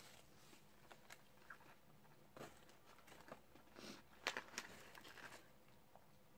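Faint crinkling and rustling of a paper napkin and a burger's paper wrapper being handled, with scattered small clicks; the loudest rustles come a little past the middle.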